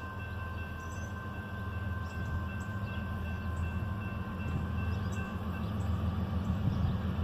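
Low rumble of a CSX freight train's diesel locomotives out of sight, growing slowly louder, with faint steady high tones that fade away about five seconds in.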